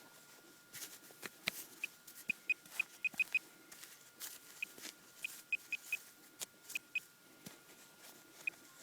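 Minelab Pro-Find 25 handheld pinpointer giving short high beeps, singly and in quick runs of three or four, as it is worked over a buried metal target, with scattered clicks and knocks of soil being handled.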